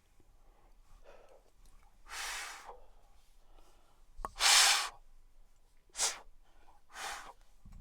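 A man breathing out hard four times, long forceful exhales, the loudest about four and a half seconds in with a click just before it: exhaling smoke after clearing a pipe bowl.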